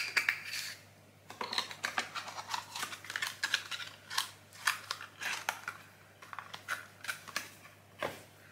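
A run of light, irregular clicks and taps with some rustling: the cardboard packaging of a cosmetics advent calendar and its small jars and packets being handled.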